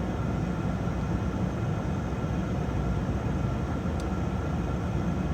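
Steady low rumble of background noise, with a faint single click about four seconds in.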